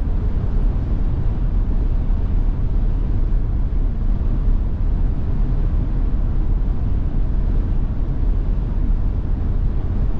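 Steady low road and wind noise inside a Tesla Model Y's cabin while driving in strong gusty wind; the electric car has no engine note, so tyre rumble and wind buffeting make up the sound.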